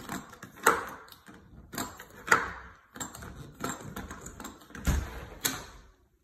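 Irregular sharp clicks and knocks, the two loudest about one and two seconds in, with a low thump near the end.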